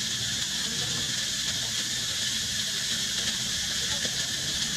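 Insects droning steadily at a high pitch, a continuous even buzz.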